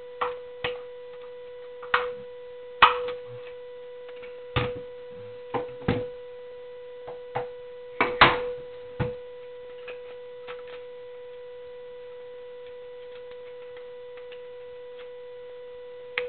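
Irregular sharp clicks and knocks of the plastic case and parts of a Spektrum DX3S radio-control transmitter being handled and pried apart, busiest in the first ten seconds or so. Under them runs a steady high-pitched electrical buzz on the recording.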